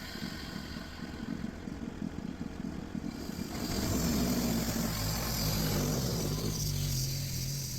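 Sawmill engine running: an even, rapid pulsing at first, then louder and steadier from about three and a half seconds in as it speeds up.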